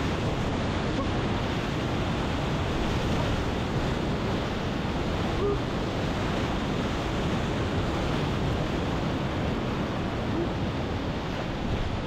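Whitewater rapids rushing and churning steadily around a kayak, loud and close to the microphone.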